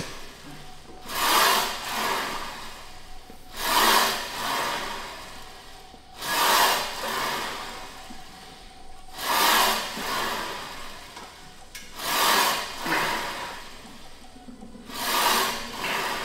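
A person breathing hard and deeply after a heavy lifting set: six long breaths about three seconds apart, each a strong rush of air followed by a softer one.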